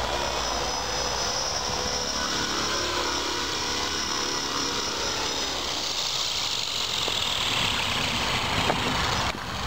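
Small electric RC helicopter's high-speed brushless main motor and rotor blades running with a steady high whine as it comes in to land. About halfway the thin whine gives way to a broader rushing sound, and the sound dips out abruptly near the end.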